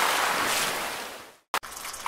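Steady rushing water, surf-like, that fades out to silence about a second and a half in; then a sharp click and a quieter water ambience begins.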